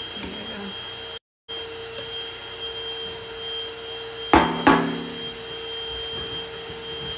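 Stainless wire whisk stirring batter in a glass mixing bowl, with two sharp ringing clinks of the whisk against the glass a little over four seconds in, over a steady hum.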